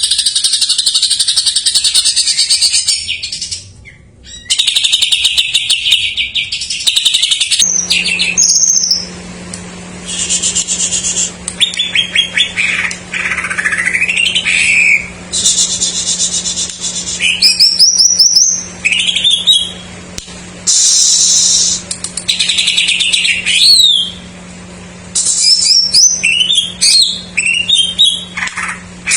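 Cucak ijo (green leafbird) singing loudly: long runs of fast, dense chattering trills alternating with sweeping rising and falling whistles, with the songs of other birds mimicked in among its own phrases.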